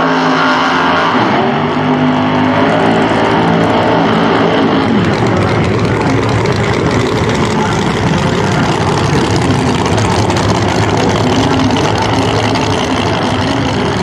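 Nitrous-assisted V8 drag-racing engines running loud during burnouts. A clear, steady engine note in the first couple of seconds gives way to a denser, rougher roar from about five seconds in.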